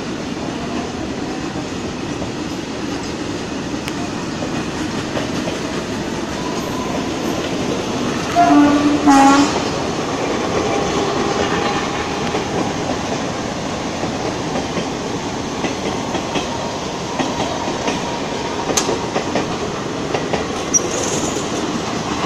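A freight train of tank wagons, then an express passenger train, rolling through a station at speed: a steady rumble and clatter of wheels over rail joints. About eight and a half seconds in come two short horn blasts close together.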